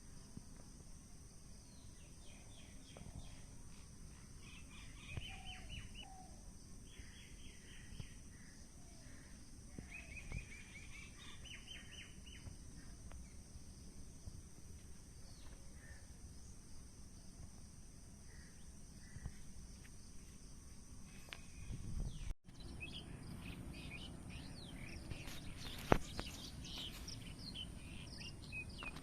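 Small birds calling in short, rapid chirp series, repeated several times, over a steady high-pitched insect drone. About three-quarters of the way through the sound cuts off sharply, and after it come clicks and rustling with scattered chirps.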